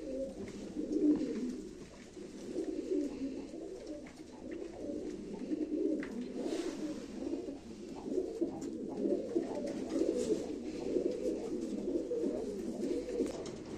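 Domestic pigeons (Turkish play pigeons) cooing without a break, in low, overlapping coos.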